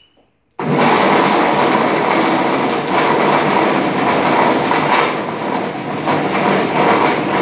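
Kitchen blender switched on about half a second in, its motor running loud and steady as it churns a load of marshmallows and sticky candies.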